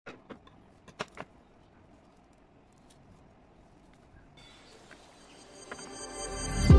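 A few sharp clicks in the first second and a half, then background music fades in about four seconds in and swells to full level near the end.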